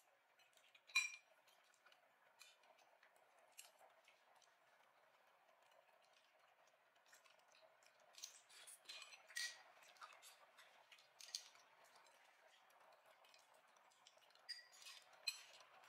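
Faint clinks and scrapes of a metal fork and spoon against a ceramic bowl while twirling spaghetti. One sharp ringing clink comes about a second in, then a run of clinks from about eight to ten seconds in and more near the end.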